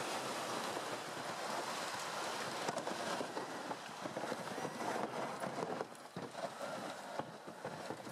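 Rubber tracks of small tracked vehicles crunching and clattering over snow, twigs and brush, a dense crackle that dips briefly about six seconds in.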